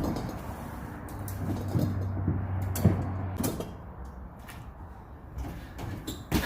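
Knocks and clunks of a refrigerator being shoved and handled in a truck, with a low steady hum in the first half.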